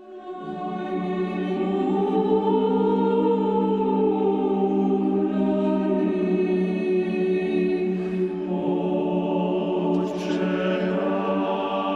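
Mixed choir singing slow, sustained chords that swell in from silence over the first couple of seconds, the sound growing fuller and brighter about eight seconds in.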